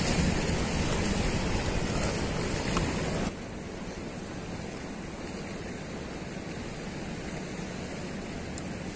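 Steady rushing of a fast-flowing river current. The noise drops suddenly to a quieter, even hiss a little over three seconds in.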